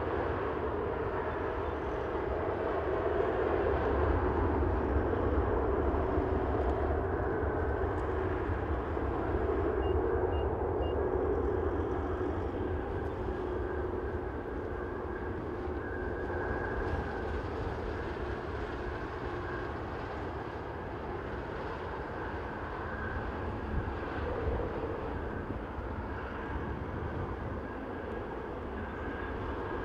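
An Airbus A380-841's four Rolls-Royce Trent 970 turbofans running at high thrust on the takeoff roll: a steady jet rumble with a humming tone. It is loudest a few seconds in and slowly fades as the aircraft moves away.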